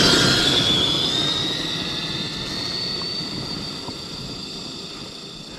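Arrma Outcast 1/5-scale RC truck at full speed, its brushless electric motor and drivetrain giving a high whine that rises in pitch as it accelerates. The sound fades steadily as the truck pulls away.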